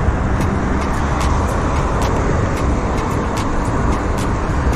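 Motorcycle riding on the road: its engine runs at a steady cruise under a constant rush of wind and road noise.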